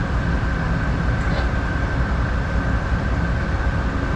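Tugboat's diesel engines running steadily: a low, even rumble with a faint high steady whine above it.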